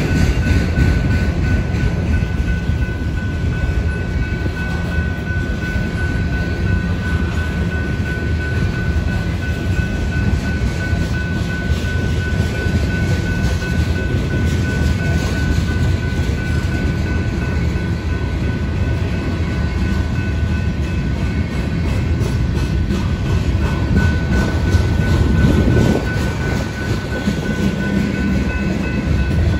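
Freight train rolling past a grade crossing: a steady, loud rumble of railcar wheels on the rails. Above it, a steady high tone from the crossing's warning bell.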